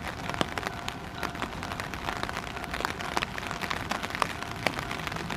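Raindrops striking a surface close by in irregular clicks, over a low steady rumble. Near the end a low whine begins to rise in pitch as the Ichibata Electric Railway 3000 series electric train starts to pull away.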